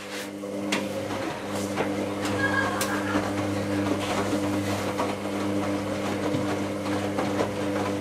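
Hoover AC158 Classica 1000 front-loading washing machine turning its drum at tumble speed: a steady motor hum that builds over the first second, with scattered clicks and knocks from the load inside.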